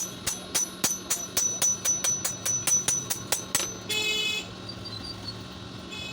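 Blacksmith's hammer striking metal on an anvil, about four ringing blows a second, stopping after three and a half seconds. A short horn-like toot follows about four seconds in.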